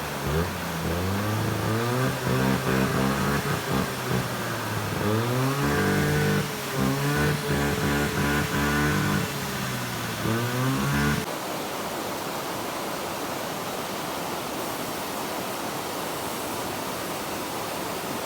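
A motor engine running with its revs rising and falling for about eleven seconds, then stopping abruptly. After that, the steady rush of a waterfall.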